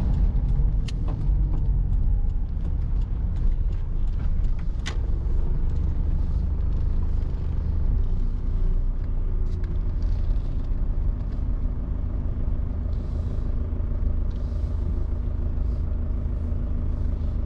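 Vehicle driving, a steady low engine and road rumble, with a few sharp clicks or rattles in the first five seconds.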